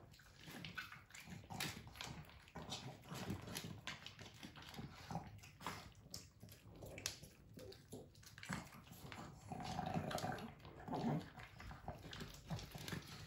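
A pug and a Pekingese eating dry kibble from their bowls: irregular crunching and chewing with many short, sharp clicks, a little louder about ten seconds in.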